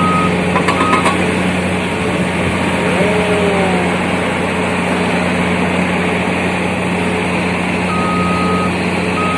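Heavy machinery engine running with a steady drone while a reversing alarm beeps: a beep right at the start, a short one about a second in, and two more near the end.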